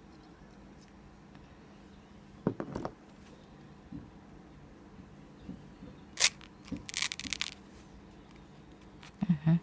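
Faint, scattered handling sounds of foam sponge pieces being pressed and rubbed together: a few soft clicks, a sharp tick about six seconds in, a brief scratchy rustle just after it, and a short low bump near the end.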